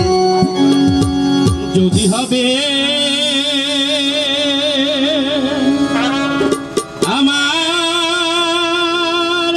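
Bangladeshi jatra folk music: long held melodic notes with a wide, wavering vibrato. The pitch glides down about six to seven seconds in, then settles on another long note.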